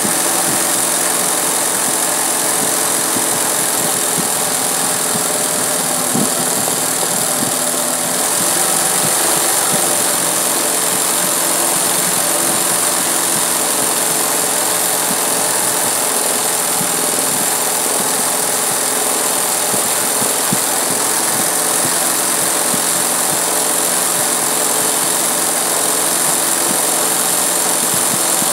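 20U industrial zig-zag sewing machine running steadily, its needle stitching free-motion embroidery fill into fabric.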